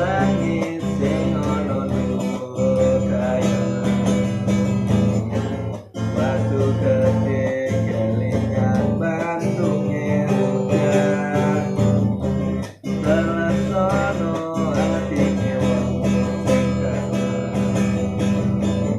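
Acoustic guitar strummed steadily through a song, with short breaks in the strumming about six seconds in and again near thirteen seconds.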